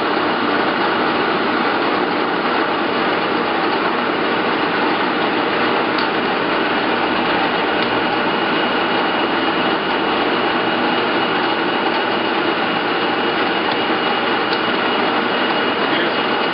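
Nardini SZ 2560T engine lathe running with no cut being taken: a steady mechanical whirr of the headstock gearing and feed train, with a thin high whine held throughout.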